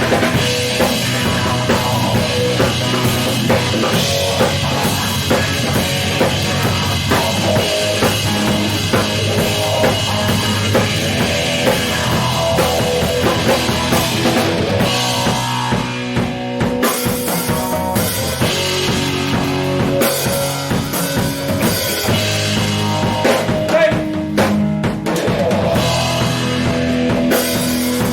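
Instrumental rock music played by a band, led by a drum kit with bass drum and rimshots, with no singing. The low end thins out briefly about halfway through.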